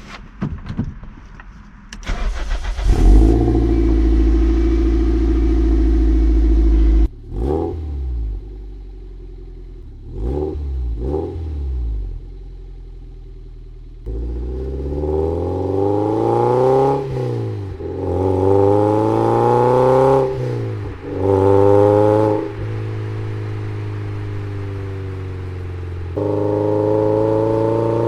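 Toyota MR2 Spyder's four-cylinder engine through a TTE cat-back exhaust with the pre-cat deleted, heard from right above the tailpipe. The engine cranks and catches about two seconds in and settles into a steady fast idle, then is blipped three times. After that the revs climb and drop several times before it runs steadily, rising again near the end.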